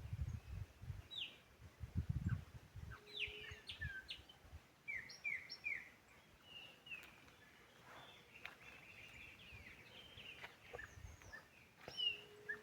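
Small birds chirping and singing: short whistled notes, many sweeping down in pitch, some repeated in a quick run of three. A few low thumps in the first few seconds and again near the end.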